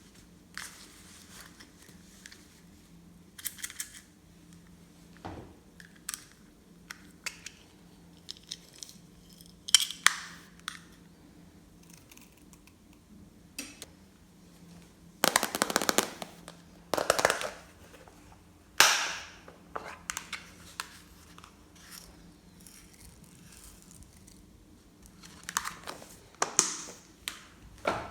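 Glossy slime being squeezed and worked by hand, giving irregular wet pops and crackles as air pockets burst. The longest burst comes about halfway through.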